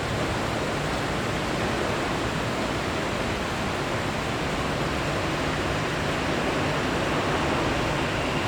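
Jet aircraft engines giving a steady, even rush of noise, with a faint high whine coming in near the end.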